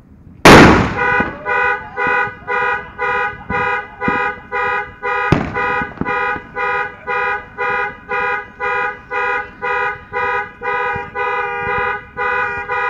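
A salute firework goes off with a single very loud bang about half a second in. Right after it a car alarm starts honking its horn about twice a second, set off by the blast. There is a second, sharper crack about five seconds in.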